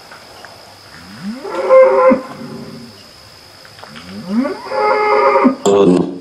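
A cow mooing twice. Each call rises at the start, then holds for about a second. The second call comes near the end and ends in a short sharper burst.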